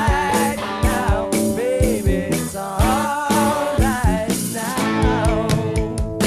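Rock song playing: an instrumental stretch with a steady drum beat and guitar.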